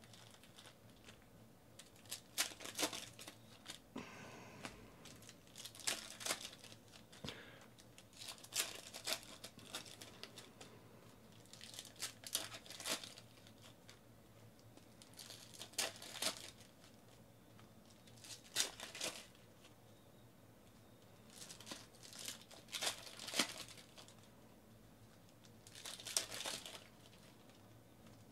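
Foil wrappers of Panini Select football card packs being torn open and crinkled one after another, a short crinkling rip about every three seconds.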